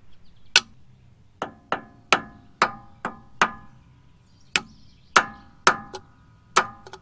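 Small sledgehammer striking a steel ball joint press adapter about a dozen times, sharp metallic blows with a short ring, used in place of an installation tool to drive a new axle housing seal into the steering knuckle. There is a pause of about a second near the middle before the blows resume.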